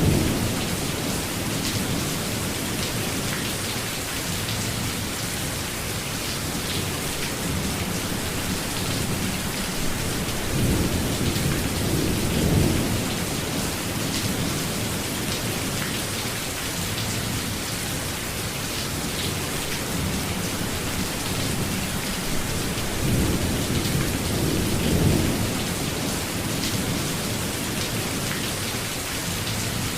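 Steady rain falling, with fine patter of drops over a constant hiss. Low rolls of thunder rumble under it at the start, about twelve seconds in and again about twenty-four seconds in.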